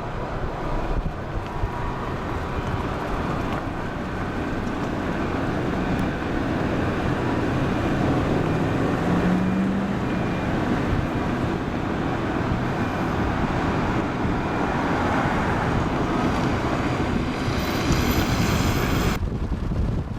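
Steady road and engine noise of a car driving, with some wind, growing slightly louder after a few seconds. There is a brief high-pitched ringing near the end.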